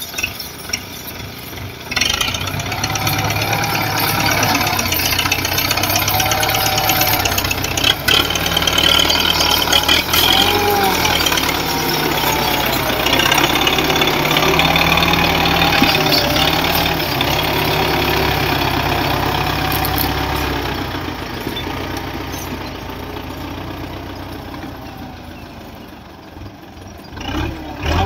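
Belarus tractor's diesel engine running steadily as the tractor works loose earth with its front blade. The engine gets louder about two seconds in and fades away over the last third.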